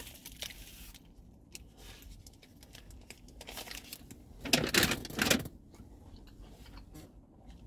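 Fast-food packaging rustling and crinkling in short bursts, loudest about halfway through, with small scattered clicks between.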